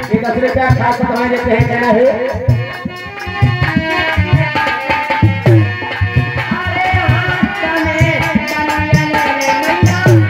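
Indian devotional folk music: a hand drum beats a steady rhythm under a sustained melodic line.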